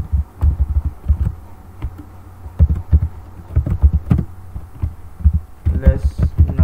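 Typing on a computer keyboard: irregular keystrokes, heard mostly as dull low thuds with lighter clicks on top.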